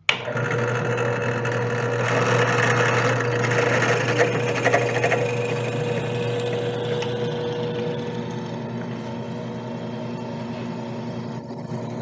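Benchtop drill press running, its twist bit boring into a wooden broom-handle dowel: a steady motor hum under the noise of the bit cutting the wood. The sound comes in suddenly at the start.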